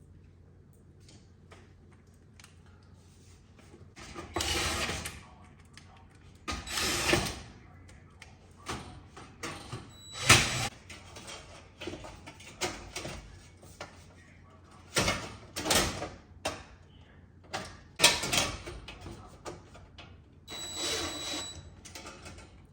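A range's sheet-metal back panel being fitted and its screws put back in: a run of irregular knocks, clatter and scrapes of about a second each.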